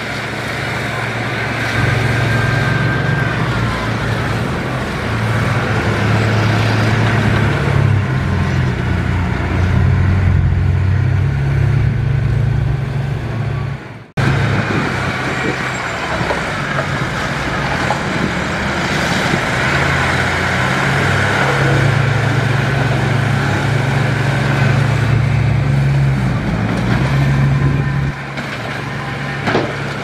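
Diesel engine of a heavy earthmoving machine running steadily under load, with a low drone that rises and falls a little. The sound cuts out abruptly for an instant about halfway through, then carries on.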